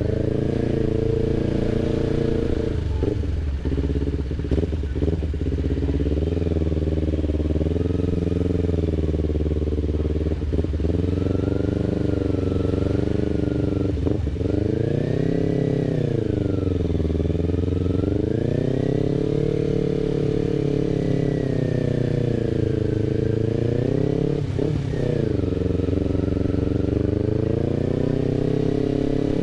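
Kawasaki Ninja 250 FI's parallel-twin engine running through a DX Generation RVR short aftermarket exhaust at low revs, the revs rising and falling several times as the bike moves through slow traffic.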